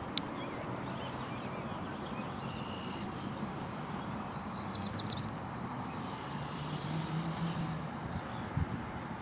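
Songbirds calling over a steady outdoor background rush. A few clear whistled notes come about two and a half seconds in, then a loud rapid trill of falling notes lasts about a second.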